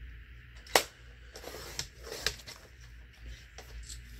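Sheet of patterned cardstock being handled on a paper trimmer: one sharp click near the start, then rustling as the paper is slid and lifted, with two more clicks and a few faint ticks.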